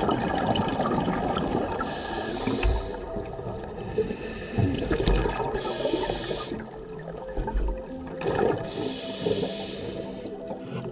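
Scuba divers' regulator exhaust bubbles heard underwater, gurgling out in a burst every few seconds with each breath.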